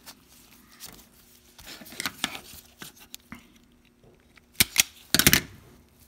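Self-adjusting wire stripper squeezed on an insulated wire and stripping it: a few light clicks about two seconds in, then a quick run of sharp, loud clacks near the end as the tool grips, pulls off the insulation and snaps open.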